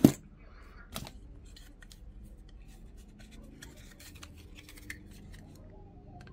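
A sharp click, then a hand pipe cutter's jaws and handles clicking and creaking faintly as the cutter is squeezed to cut a plastic pen-barrel tube.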